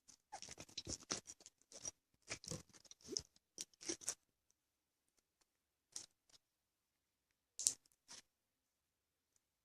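Clear glue slime being stretched and poked by hand, giving quick runs of small crackling clicks and pops for about four seconds, then a few single pops.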